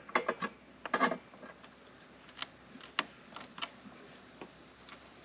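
Steel bar of a manual tire changer levering a small mower tire's bead over the rim: scattered clicks and knocks, the loudest about a second in and at three seconds. Under it, a steady high chorus of crickets.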